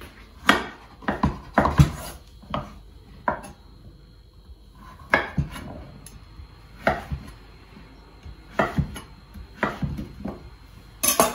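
Chef's knife dicing peeled butternut squash on a wooden cutting board: sharp knocks of the blade going through the flesh onto the board, irregularly spaced, some in quick pairs and some after short pauses.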